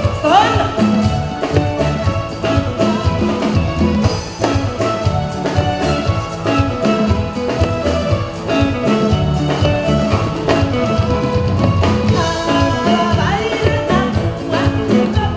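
Live band playing an upbeat dance number, with drum kit and congas keeping a steady beat under keyboards, and singing at times.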